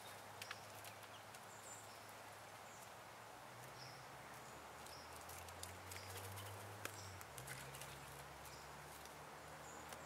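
Very quiet woodland ambience with a faint low hum, scattered light clicks and taps, and faint short high-pitched chirps repeating every second or so.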